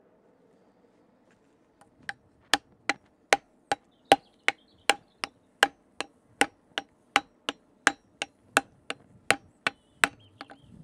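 A hammer striking a hot 3 mm steel plate leaf laid on a wooden block, shaping it: a steady series of about twenty sharp blows, roughly two and a half to three a second, starting about two seconds in.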